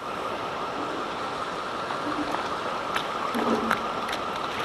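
Steady rushing of water below a dam spillway, an even hiss with no letup, with a few faint ticks and a brief low murmur of a voice in the middle.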